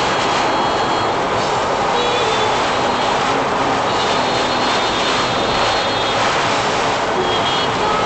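Steady, loud rush of typhoon rain and wind on a Daihatsu Mira Cocoa with its tyres hissing through water on the road, heard from the dashcam inside the cabin. Faint high whistles come and go over it.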